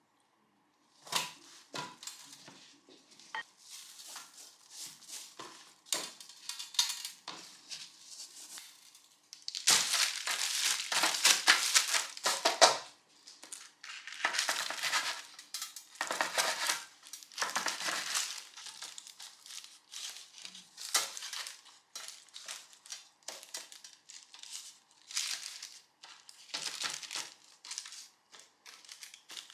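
Intermittent crinkling and rustling handling noises, in irregular bursts with a longer, louder stretch about ten to thirteen seconds in.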